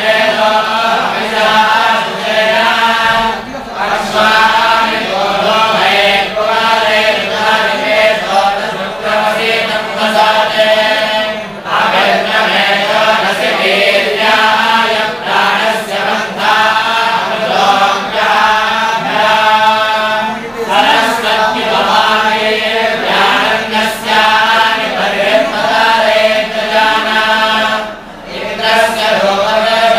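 A group of young men chanting scripture together in unison, a steady recitation broken by short pauses for breath about every eight seconds.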